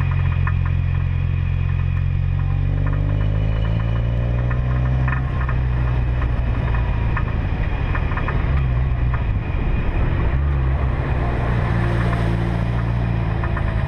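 Car engine running steadily while driving, with a low drone. Its pitch rises about three seconds in as it speeds up, and there are scattered light clicks.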